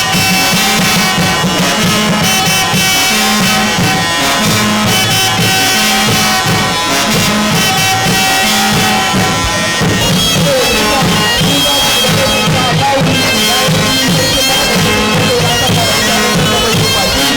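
Music with a droning, bagpipe-like wind instrument held over fast, steady drumming.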